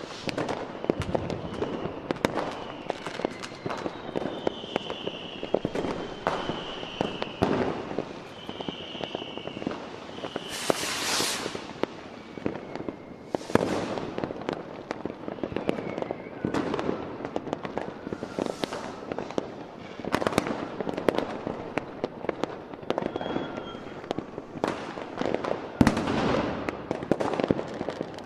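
Fireworks display: aerial shells going off one after another with bangs and crackling. High whistling tones come through in the first few seconds, and a loud hissing rush comes about ten seconds in.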